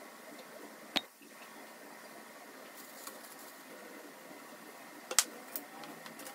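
Sharp metal clinks from handling black steel wire pet-playpen panels and their connecting pins: a single click about a second in and a louder cluster of clicks about five seconds in, over a steady hiss.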